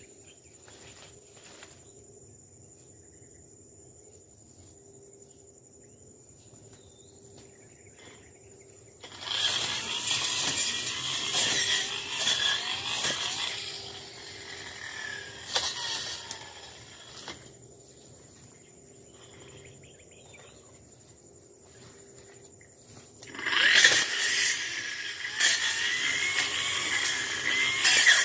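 Tanzu brush cutter throttled up to cut through brush and grass in two long, loud spells, about nine seconds in and again near the end, dropping back to a low idle between them. A steady high insect drone is heard in the quieter stretches.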